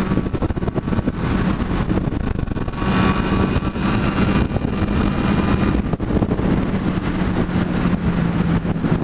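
Motorcycle engine running at steady cruising speed under a heavy rush of wind and road noise, with the engine note easing slightly lower in the last couple of seconds.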